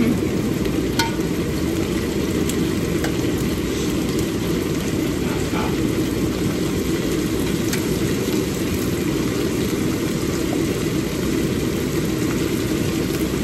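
Food frying in a pan on the stove: a steady sizzle over a low, constant rushing noise, with a few light clicks of a utensil.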